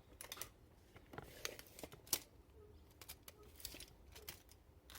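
Scattered clicks, knocks and short rustles of tools being handled and moved about, the sharpest knock about two seconds in.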